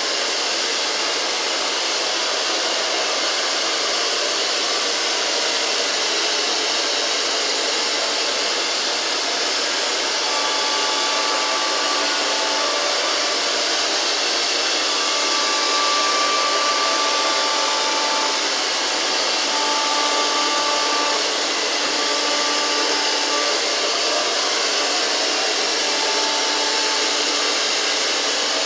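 GRUNDIG VCR 2330 robot vacuum cleaner running: a steady whirring hiss from its suction fan, with faint thin whining tones coming and going from about ten seconds in.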